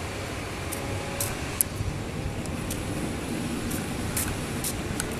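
Distant Boeing 737 jet engines running at taxi power: a steady rumbling hiss with no rise or fall, with a few faint clicks scattered through it.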